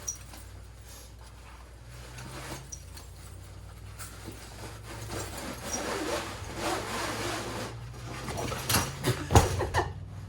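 Dynamic Discs Scout portable disc golf basket being collapsed and handled: rubbing and scraping of its parts, with a few sharp knocks and clanks near the end, one of them the loudest sound.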